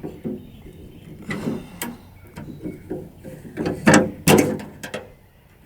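Irregular clicking and rattling of the tailgate latch handle's retaining clips and tabs being pried and worked loose, with two sharp louder clicks about four seconds in.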